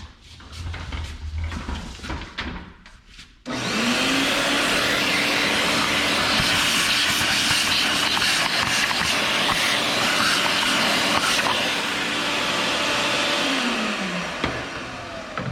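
Vacuum cleaner switched on about three and a half seconds in, picking up the chips left by a saw cut, running steadily, then switched off near the end and winding down with a falling hum. Before it starts, a few light knocks of handling.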